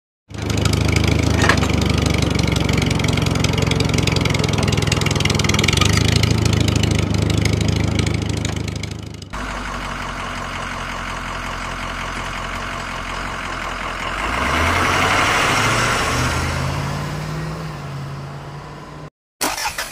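Tractor engine running steadily with a deep hum. About nine seconds in the sound cuts abruptly to a quieter run. The engine then revs up and back down before the sound breaks off near the end.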